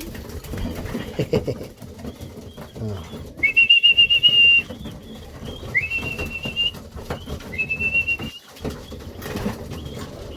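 A person whistling three long, steady notes, each slurring up into a held pitch for about a second, a call to bring racing pigeons in to the loft. Pigeons coo softly underneath.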